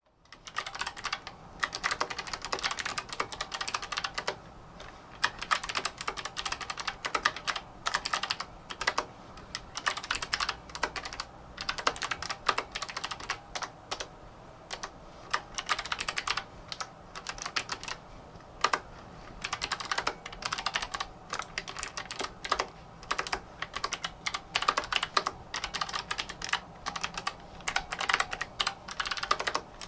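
Typing on an MSI Vigor GK50 Low Profile mechanical keyboard with Kailh Choc PG1350 low-profile switches: rapid runs of keystroke clicks with brief pauses between bursts.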